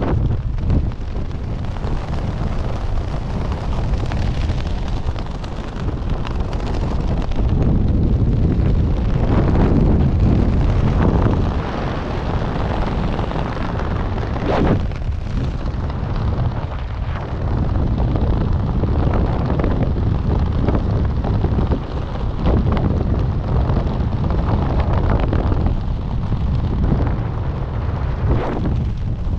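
Wind rushing over the camera microphone under an open parachute canopy: a loud low rumble that swells and eases, loudest for a few seconds about a third of the way in.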